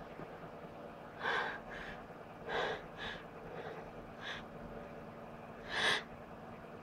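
A person's short, sharp gasping breaths, about seven in a row with the loudest near the end: the catching breaths of someone working up to a sneeze.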